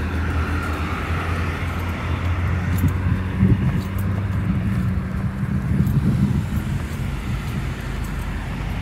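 Road traffic at an intersection: cars driving past over a steady low engine hum.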